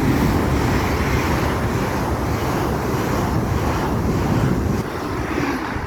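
LNER Azuma Class 801 electric multiple unit passing through the station: a loud, steady rush of wheels on rail and air that eases off about five seconds in.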